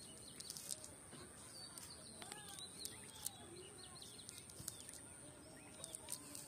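Birds chirping with many short, arched chirps overlapping throughout. A faint steady high-pitched tone and scattered light clicks run underneath.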